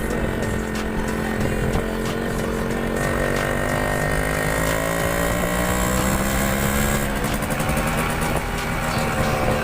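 Motorcycle engine running under way, its pitch climbing slowly for several seconds as the bike speeds up, then dropping near the end.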